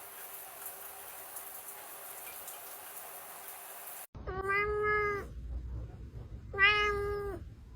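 Faint steady hiss for about the first half, then a cat meowing twice: two long, drawn-out meows of about a second each, starting a little past the middle, with a low rumble beneath them.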